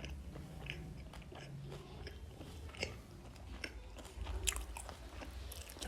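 A person chewing a mouthful of spiced seitan sadeko close to the microphone, with scattered small wet mouth clicks and smacks.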